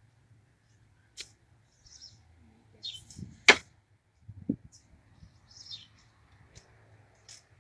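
A few sharp knocks of a long-handled garden hoe striking the ground, the loudest about three and a half seconds in, with small birds chirping between them.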